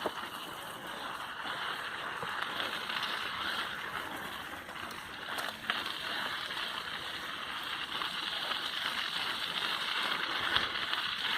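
Mountain bike rolling along a dirt trail: a steady rush of tyre and riding noise, with a few short clicks and rattles from the bike.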